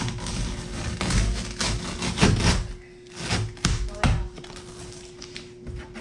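Covering sheet being peeled off cured fiberglass and epoxy, crackling and tearing in uneven pulls with a couple of sharp snaps about halfway through, over a steady low hum.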